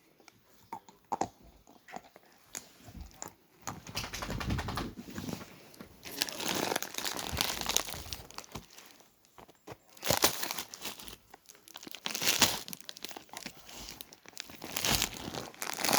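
Crinkling and rustling in repeated bursts of a second or two, with short gaps between them.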